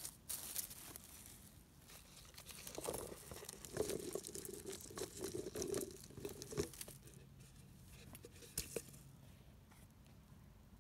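Clear plastic bottle crinkling as it is handled and tipped, with chanterelle mushrooms sliding and tumbling out onto the forest floor in a soft patter. It is busiest over the first seven seconds, and a few sharp clicks come near the end.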